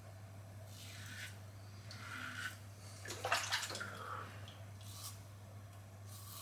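Karve Christopher Bradley stainless safety razor with a Polsilver Super Iridium blade scraping through lathered stubble in a series of short strokes, the loudest cluster about three seconds in. A steady low hum runs underneath.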